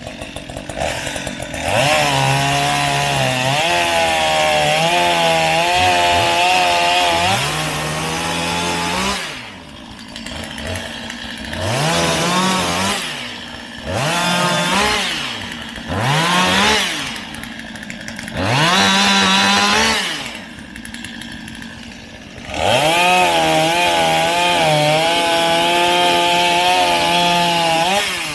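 Chainsaw running at full throttle through wood in two long cuts, one near the start and one near the end. In between, it drops back toward idle and is revved up and down about five times.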